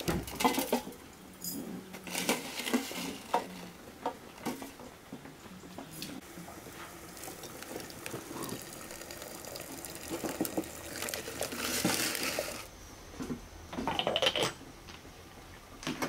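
Clinks of loose black tea being spooned into a porcelain teapot, then hot water running from a samovar's tap into the teapot. The pouring sound grows louder as the pot fills and stops abruptly about twelve seconds in, followed by a few porcelain clinks.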